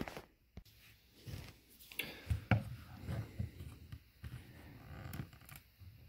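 Faint handling sounds: scattered light clicks, taps and rustles of hands and a tool, with a few sharper clicks about two to two and a half seconds in.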